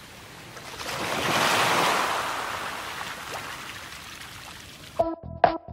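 Ocean surf: a wave swells to a crash about a second and a half in and slowly washes away. Near the end the surf cuts off abruptly and electronic music with a steady beat starts.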